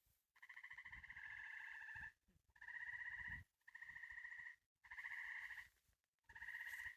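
Tree frogs trilling, faint: about five pulsed trills, each close to a second long, with short pauses between them.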